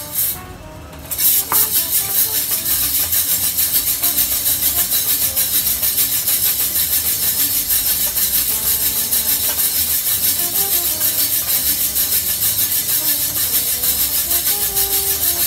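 Green coffee beans rattling as they tumble in a rotating stainless-steel drum roaster over a gas flame. The rattle is steady and quickly pulsing, with a hiss, and dips for about a second near the start. Background music plays over it.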